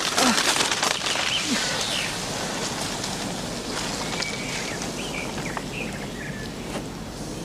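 Outdoor ambience: a steady rushing noise with a few short bird chirps scattered through it, and a few clicks and knocks near the start.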